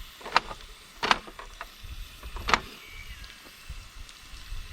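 Camp cookware and utensils being handled, with a few sharp knocks and clicks: three louder ones, about a third of a second in, just after a second in, and about two and a half seconds in, and lighter ones between.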